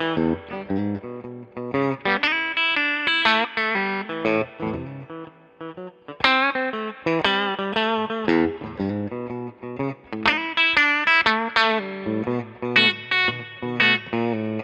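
Epiphone Les Paul 100 electric guitar played through an amplifier: quick runs of single notes and short phrases, with a brief let-up about five seconds in.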